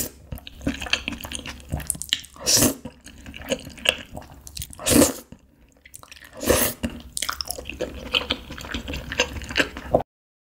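Wet slurping of cream-sauce noodles: four loud slurps about two seconds apart, with softer wet chewing and mouth sounds between them. The sound cuts off suddenly near the end.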